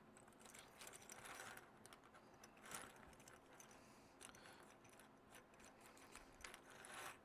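Faint, irregular clicking of a nylon zip tie being pulled tight through its ratchet head.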